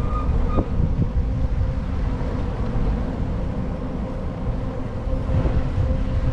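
Steady low rumble of wind and road noise on the microphone of a moving touring bicycle, with a faint even hum underneath and a short higher tone about a second in.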